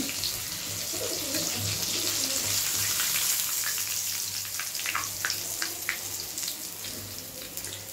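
Rava-coated pomfret frying in hot oil in a kadai: a steady sizzle with scattered crackles and pops.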